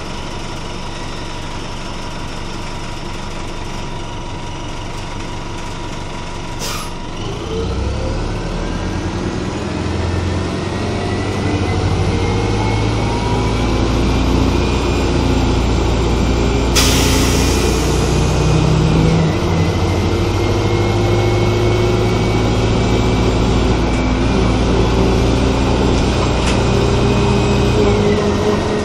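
Interior sound of a 1996 RTS Nova transit bus: the engine idles, then a click about a quarter of the way in as the bus pulls away, its engine and drivetrain getting louder with a rising whine that steps down twice as it shifts up. A brief loud hiss of air comes about halfway through.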